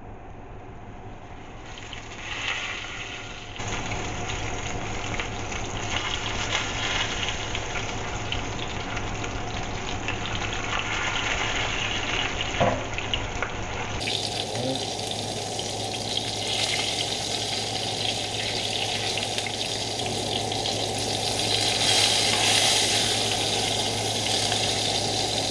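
Breaded catfish fillets frying in hot olive oil in a nonstick skillet: a steady sizzling hiss that grows louder a few seconds in. Two light knocks are heard about halfway through.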